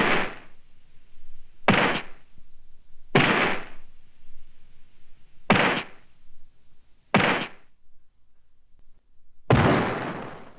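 Six separate blast or impact sound effects from a Showa-era Japanese monster-film sound library, each hitting suddenly and dying away within about a second. A short quiet gap comes before the last one, which rings on longer.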